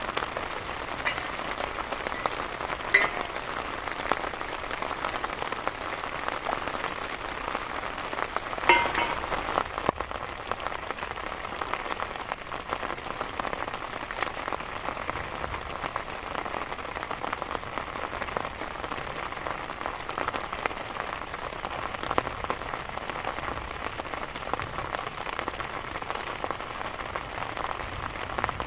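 Heavy rain falling steadily, with a couple of sharper impacts about 3 and 9 seconds in.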